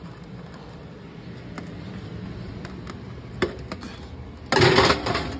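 A metal baking sheet of potatoes being put into the oven: a few light clicks and a knock, then a short loud metallic clatter near the end, over a steady low hum.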